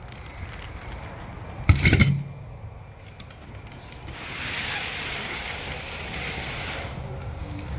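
Metal exhaust-kit hardware clinking sharply once about two seconds in, as the clamps are handled, followed by a few seconds of rubbing and rustling.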